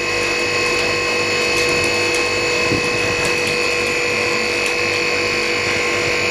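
LCD freezer separator machine running: a steady mechanical hum with a constant whine, and a few faint clicks.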